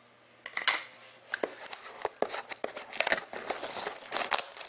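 Clear plastic shrink-wrap on a sealed trading-card box being torn open and pulled off, crinkling with many sharp crackles that start about half a second in.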